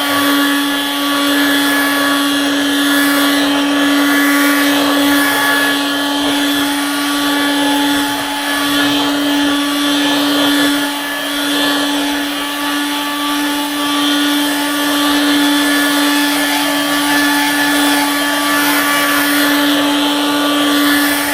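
Original Dirt Devil Handivac hand vacuum running steadily as it is worked over a mattress: a constant motor hum with a higher whine and the hiss of air through it. Fairly quiet for a vacuum.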